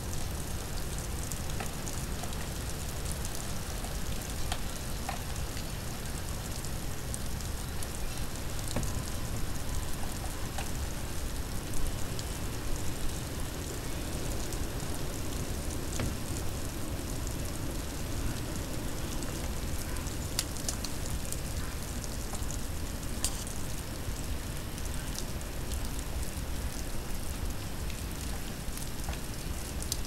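Steady outdoor hiss and low rumble of a snowstorm, with scattered faint ticks and crackles throughout.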